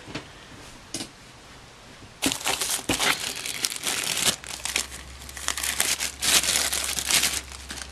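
Clear plastic zip-top bag crinkling as hands handle it and pull it open, starting about two seconds in and going on in quick, irregular crackles.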